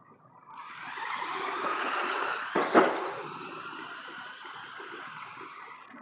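Remote-control RZR XP side-by-side driving past on pavement, its motor whine and tyre noise rising and then fading away, with one sharp thump about two and a half seconds in.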